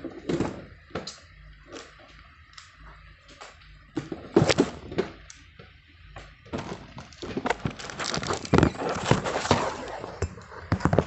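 Hands handling and opening toy packaging: scattered taps and clicks, then from about six and a half seconds a denser stretch of rustling and crinkling with many small clicks.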